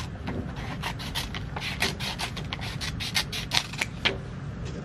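Sheets of paper rustling and crinkling as they are handled: a quick, irregular run of crisp rustles, with a few louder crackles in the second half.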